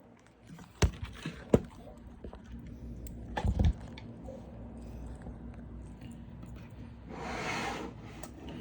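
Handling noise from fitting a small fan cable onto a computer-like circuit board: a few sharp clicks and taps in the first two seconds, a dull thump about three and a half seconds in, and a short rustle near the end.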